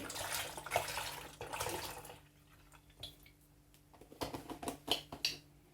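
A litre of milk being poured into a pan, a continuous splashing pour that stops about two seconds in. It is followed by a few light knocks a couple of seconds later.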